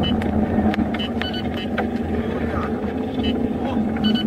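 Steady engine and road noise of a car driving at highway speed, heard from inside the cabin, with scattered light clicks and rattles.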